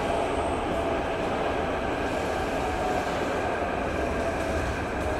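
Interior running noise of a Thomson–East Coast Line MRT train, heard from inside the carriage: a steady rumble with a faint whine.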